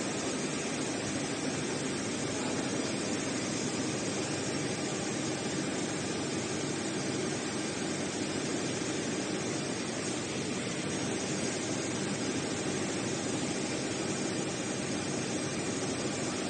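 Steady mechanical hum and hiss of a computerized heating-wire sewing machine running, its sewing head stitching as it travels across the table.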